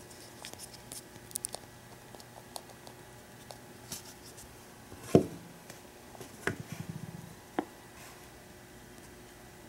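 Small plastic clicks and taps of a Nendoroid figure's parts being handled and fitted, with fingers rubbing on the plastic; the sharpest click comes a little past halfway, with two more shortly after.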